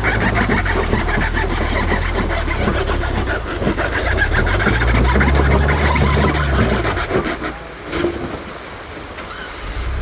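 An off-road vehicle's engine runs low under a steady crackle of tires crunching and scraping over rock and gravel. A sharp knock comes about eight seconds in, and the engine note fades after it.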